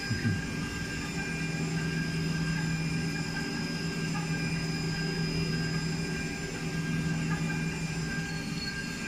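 The 430 CNC milling machine's high-speed spindle (1.5 kW, up to 48,000 rpm) runs steadily while its cutter machines a metal block under coolant spray. It makes a constant low hum with several steady whining tones above it.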